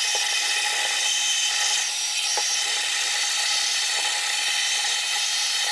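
Vacuum cleaner running steadily with a high whine and hiss as its nozzle sucks dust from a netbook's plastic palmrest frame, with a couple of faint ticks.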